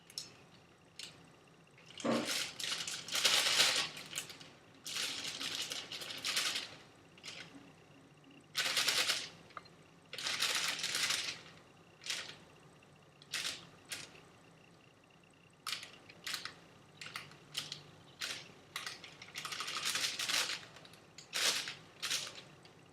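Dry pancake baking mix being shaken and poured into a bowl on kitchen scales, in many short, irregular hissing bursts with pauses between.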